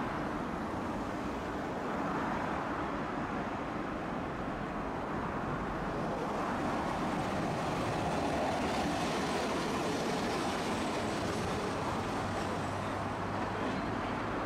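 Tosaden streetcar running on its rails: a steady rumble of wheels and motor that grows louder around the middle.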